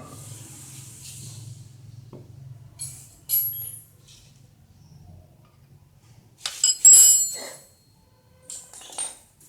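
Metal tools and tractor clutch parts clinking and ringing while the clutch's adjusting bolts are unscrewed. A few scattered clinks come first, then a louder cluster of ringing metallic clinks about seven seconds in.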